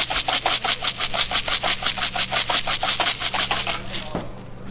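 Plastic shaker bottle of chocolate crumb topping shaken rapidly, about nine rattles a second, stopping shortly before the end.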